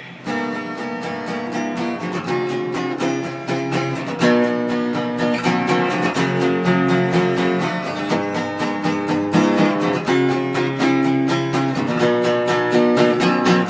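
Acoustic guitar strummed in a steady rhythm, changing chords every couple of seconds: the instrumental intro of the song.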